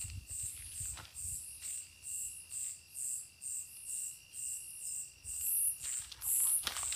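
Night insects calling: a high chirp repeating about three times a second over a steady, lower continuous trill that stops about six seconds in. Brief rustling near the end.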